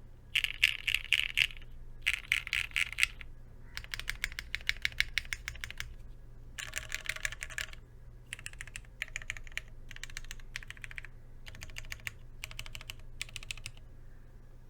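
Typing on a plateless Vertex Arc60 keyboard with lubed, broken-in Cherry MX Hyperglide Black linear switches and Shenpo PBT keycaps: runs of rapid keystrokes lasting a second or two, separated by short pauses.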